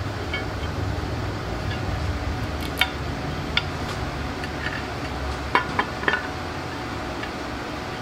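Metal clinks and taps as an engine's rear cover plate and its bolts are handled and fitted against the engine block: a few scattered sharp clinks, with a quick cluster of three a little before the end, over a steady low hum.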